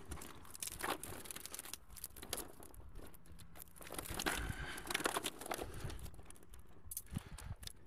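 A fishing keepnet's mesh rustling and crinkling as it is gripped and pulled up by hand, in short irregular scrapes.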